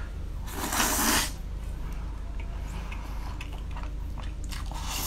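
A person slurping spicy noodles: a noisy, hissing suck about half a second in, then soft wet chewing clicks, and a second slurp starting at the very end.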